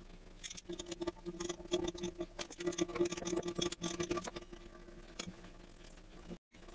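Rapid, irregular clicks and ticks of tongue-and-groove pliers gripping and turning the plastic nut that holds a toilet fill valve to the bottom of the tank, dying away after about four and a half seconds.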